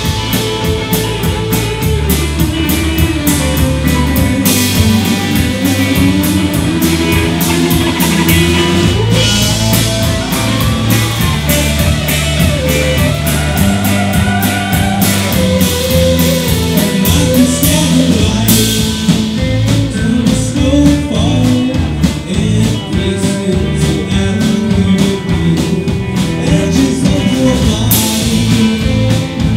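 Live rock band playing: two electric guitars, an electric bass and a drum kit.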